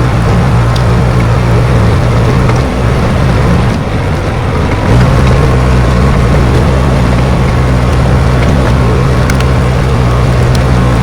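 Bulldozer's diesel engine running steadily under load, a low engine note that dips briefly about four seconds in and comes back stronger a second later.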